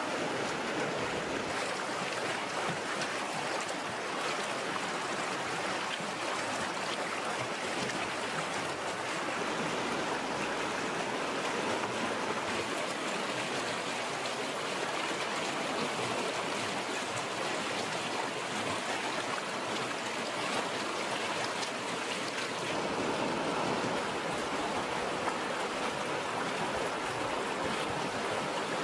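Fast-flowing stream rushing over rocks: a steady, continuous wash of running water.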